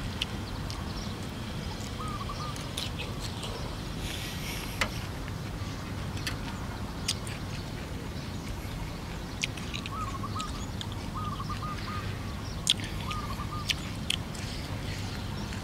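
A small bird chirping in short warbled phrases of a few notes, a handful of times, over a steady low background hum, with scattered soft clicks of chewing and mouth sounds from eating noodles.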